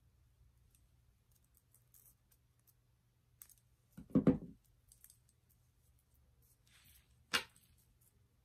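Round-nose jewelry pliers set down on a wooden tabletop with a short clattering knock about four seconds in. Faint small clicks of the pliers and metal earring hook come before and after it, with one sharp click near the end.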